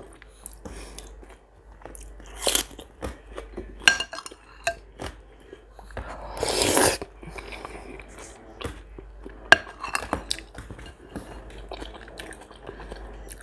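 Eating cabbage soup with a metal spoon and bread: close-up chewing and biting, the spoon clicking against the china bowl several times, and the loudest sound a slurp of soup off the spoon about six and a half seconds in.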